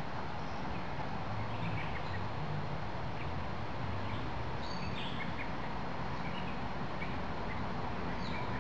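Outdoor ambience: a steady hiss and low rumble, with scattered short bird chirps throughout.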